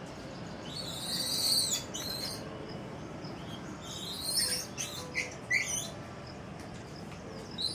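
High-pitched squeaking animal chirps in short bouts: one about a second in, a cluster of quick falling chirps around four to six seconds in, and another starting near the end.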